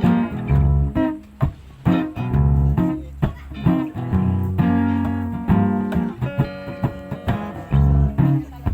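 Acoustic guitar playing an instrumental passage, plucked and strummed notes over low bass notes, with no singing.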